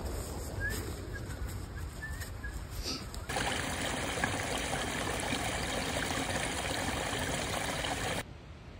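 Small woodland stream splashing and trickling down a little cascade over mossy rocks, starting about three seconds in and cutting off abruptly near the end. Before it, a low rumble.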